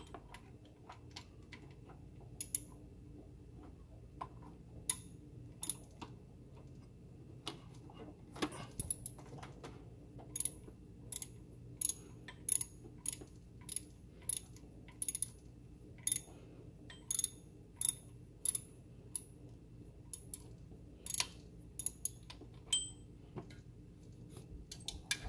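Sharp metallic clicks, one at a time, a few in the first seconds and then about one or two a second: an 8 mm Allen tool being worked in short strokes to back out the engine's belt tensioner bolt.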